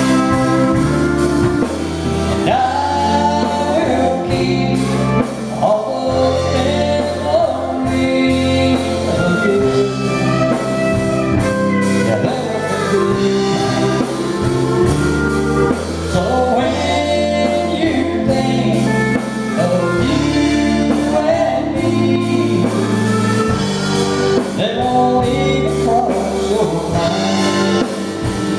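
Live country band playing a song, with electric guitars and drums under a singer's voice carrying the melody.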